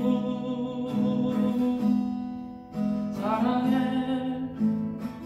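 Acoustic guitar strummed and left ringing, with a man singing; his voice comes back in about three seconds in with a new sung phrase over the guitar.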